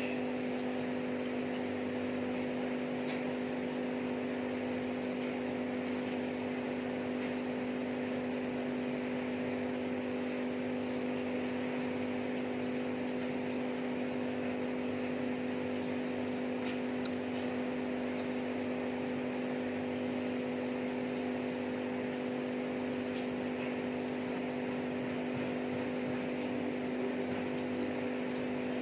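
A steady machine hum at a constant pitch, with a few faint clicks scattered through it.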